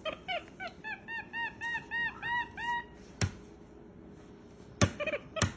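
Capuchin monkey giving a quick run of short, high chirping calls, about four a second, that stop after about three seconds. Then a few sharp knocks on the metal baking sheet.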